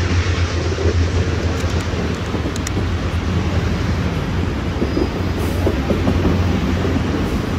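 Union Pacific passenger cars rolling past on curved track: a steady rumble of steel wheels on the rails.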